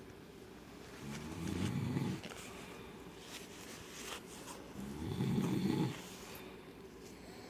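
A man snoring in deep sleep: two long, low, rattling snores about three and a half seconds apart, each on an in-breath, with quieter breathing between them.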